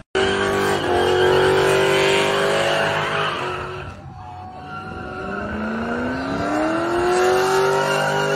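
A car doing donuts, its engine revving hard with the tyres squealing. The revs sag about four seconds in, then climb steadily again.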